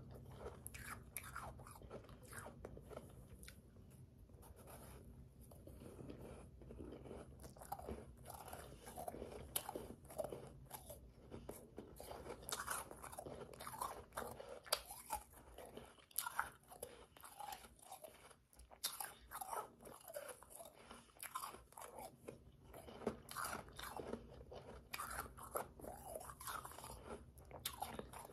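A person chewing and crunching mouthfuls of powdery, slushy ice: a continuous run of irregular, crackling crunches, with a few sharper snaps.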